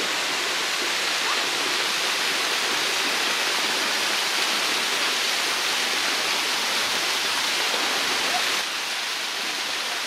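Klong Chao waterfall: several streams of water falling over a rock face into a pool, a steady rushing that drops slightly in level near the end.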